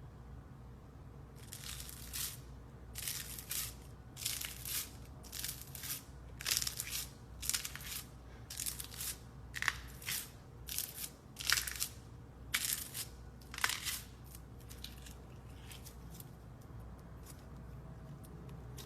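Slime being squeezed and pressed by hand, giving about a dozen short crackling, crunchy squishes, roughly one a second, that die away to faint ones near the end.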